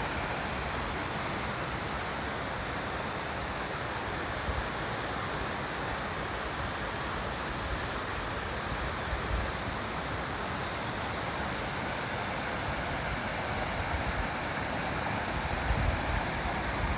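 Running water, like a mountain stream, rushing steadily, with low gusts of wind rumbling on the microphone near the start and the end.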